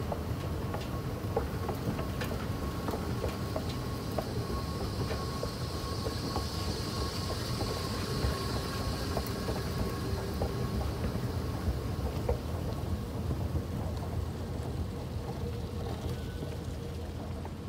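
Metro station escalator running: a steady low rumble with a faint steady hum and scattered light clicks.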